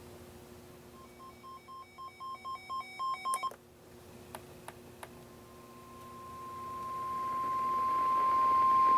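A weather alert radio beeping: about a dozen short, evenly spaced beeps that grow louder, then a few clicks. A steady NOAA Weather Radio warning alarm tone follows, a single tone that swells in loudness and signals that a warning broadcast is about to begin. A faint low hum runs underneath.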